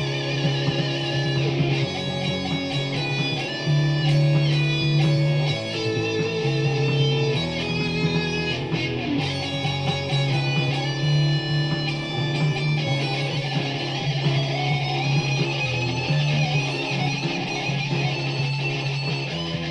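Instrumental background music led by guitar, over a steady low bass line.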